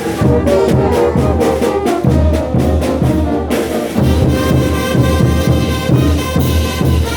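Bolivian carnival brass band playing: trumpets and trombones over a steady drum beat, with cymbals coming in more strongly about halfway through.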